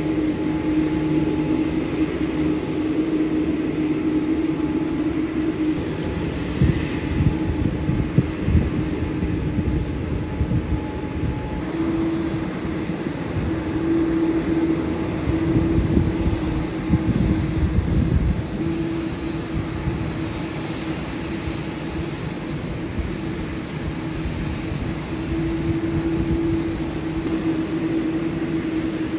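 Boeing 787-9 airliner's jet engines running at ground idle with a steady hum, a low rumble swelling and fading a couple of times.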